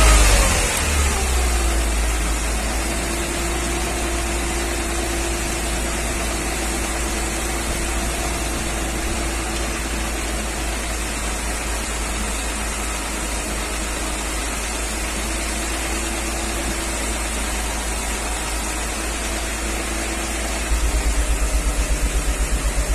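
1994 Mercedes G320's 3.2-litre straight-six engine running in the bay. Its revs drop from a raised speed to a steady run over the first couple of seconds, and a fast rhythmic pulsing starts near the end. The engine has a light metallic tick, worse when cold, which the mechanic suspects is a piston knock.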